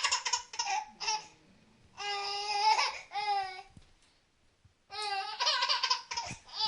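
Baby laughing in high-pitched, drawn-out squealing bursts, with a second-long pause before the last run.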